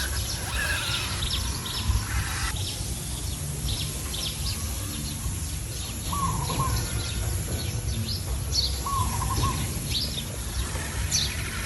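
Wild birds chirping, with one short call repeating about every three seconds, over a steady low rumble.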